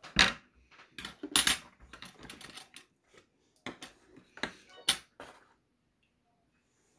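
Handling sounds of a fruit and a pair of metal scissors being picked up and set down against a cardboard box at a table. The sound is a scatter of short knocks and clicks, with a sharp metal click at about five seconds.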